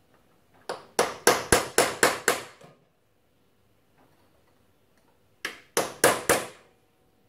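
Hammer striking a steel punch in quick metal-on-metal taps, bending the tab of the front sprocket nut's locking plate over against a flat. A run of about seven blows, a pause, then four more near the end.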